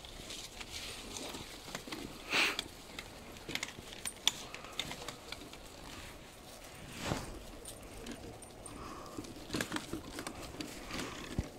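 Footsteps and rustling through dry leaf litter, with scattered light clicks and jingles, and a brief louder rustling burst about two and a half seconds in.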